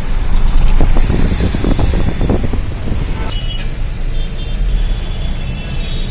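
Road vehicle noise with a heavy low rumble of wind on the microphone. It clatters for the first couple of seconds, then turns steadier and quieter after about three seconds.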